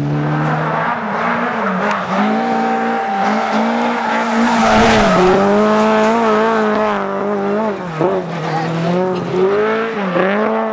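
Rally car engine at full throttle, revving up and falling back again and again through gear changes and corners. A burst of tyre noise comes about halfway through.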